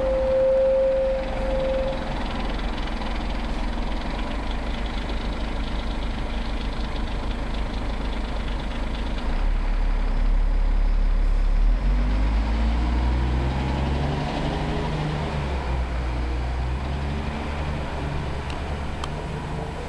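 Street traffic: a motor vehicle's engine running close by over a steady low rumble. From about twelve seconds in, a deeper engine note rises in steps and then holds, as a vehicle pulls away through its gears. There is a brief steady tone near the start.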